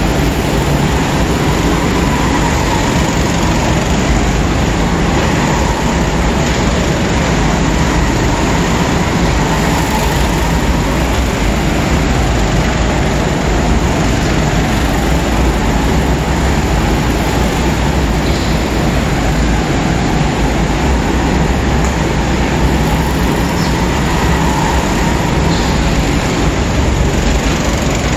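A steady, unbroken din of several go-karts racing around an indoor track.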